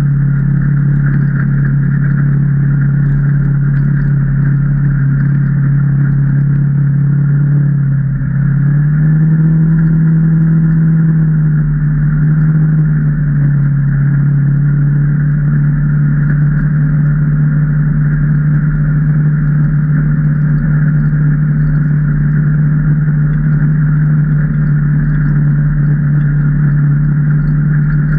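Can-Am Maverick Trail 800 side-by-side's Rotax V-twin engine running steadily under way. About eight seconds in the revs dip briefly, then pick up and hold higher for a few seconds before settling back to a steady pitch.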